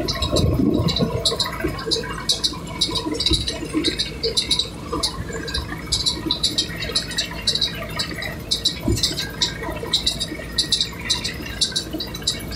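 Farm tractor and its rattling machinery working across a dry field: a steady low rumble with fast, irregular clattering over it.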